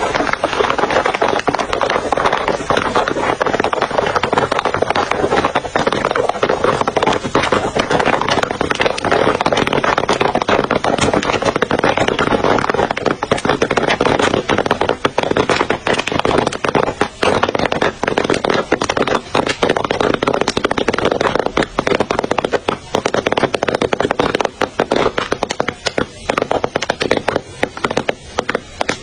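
Popcorn popping in hot oil in an open iron wok: a loud, dense sizzle packed with sharp pops and crackles. The pops thin out over the last several seconds as the batch finishes popping.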